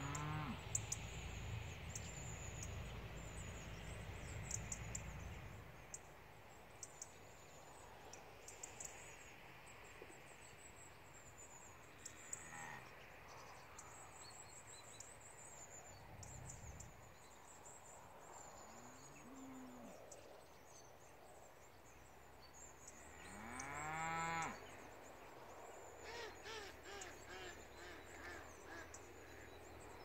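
Cows mooing a few times, faint and spaced apart, the loudest and longest moo near the end. Small birds sing high and thin in the background.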